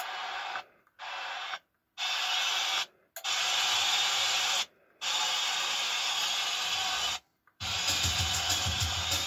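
Music played through an Onkyo TX-NR509 AV receiver, cutting out for a split second five times as its listening mode is switched, the sound changing with each mode. It stays thin and treble-heavy until the last switch, near the end, when it comes back with much more bass and a pulsing beat.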